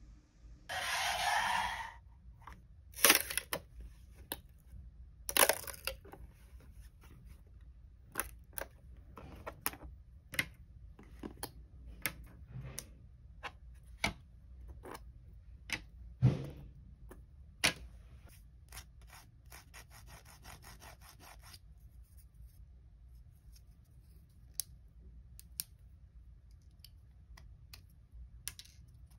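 Green PLA 3D-printed storage-crate panels being taken off a textured build plate and handled and fitted together by hand: a scraping rustle about a second in, then a scattered series of sharp plastic clicks and snaps, the loudest near the start.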